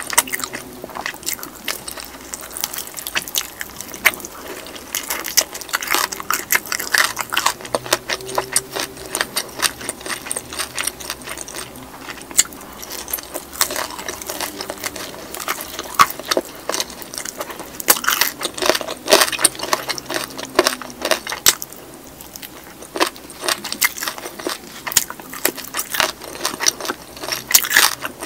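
Close-miked eating sounds: biting and chewing a Kyochon soy-sauce fried chicken drumstick, with many sharp crackles and clicks from the crisp skin and mouth.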